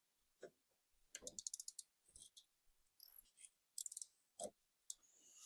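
Faint clicking and light rattling of small rear-window hinge parts being handled and worked into place, with a quick run of about eight clicks a little over a second in and a single knock near the end.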